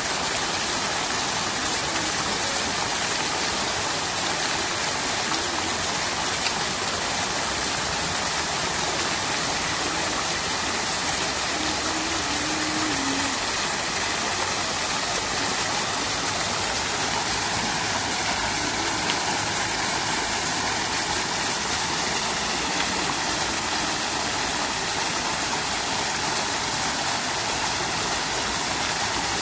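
Fountain water splashing and babbling steadily, an even unbroken rush of falling water.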